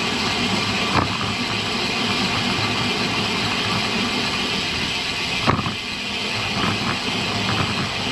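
Steady rush of wind and road noise while riding a road bicycle, with two brief knocks, one about a second in and a sharper one about five and a half seconds in.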